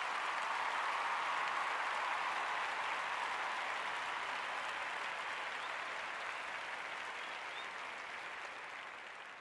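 Crowd applause and cheering, loudest about a second in and then slowly fading away.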